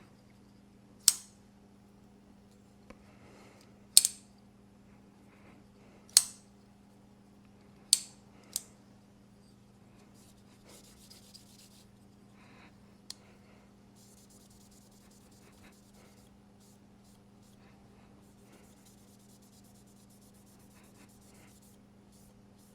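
WE Knife Vision R flipper knife, its pivot fitted with Skiff bearings, being flicked so the blade snaps open and shut: five sharp metallic snaps over the first nine seconds, then faint scratching and rubbing as it is handled.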